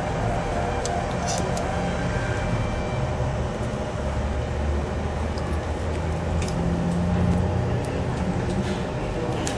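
Steady low rumble of a vehicle engine, swelling a little twice, with a few faint clicks over it.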